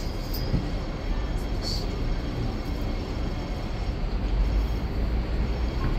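Hong Kong double-decker electric tram running along its street track: a steady low rumble over city street noise, growing a little louder in the second half.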